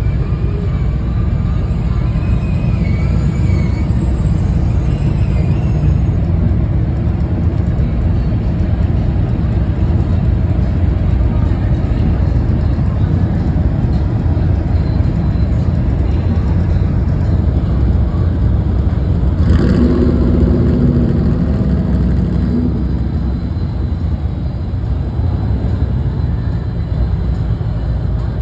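Classic cars and trucks driving slowly past one after another, their engines making a steady low rumble. About twenty seconds in, a louder pitched sound starts sharply and lasts for about three seconds.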